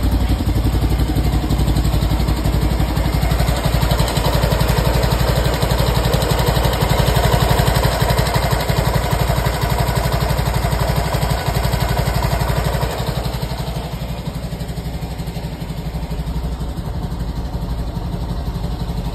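1959 BMW Isetta 300's single-cylinder four-stroke engine idling just after a cold start, a steady, even chugging run. It gets a little quieter about thirteen seconds in.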